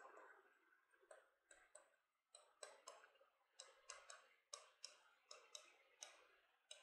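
Faint, irregular ticks and taps of a marker pen writing on a board, a few per second.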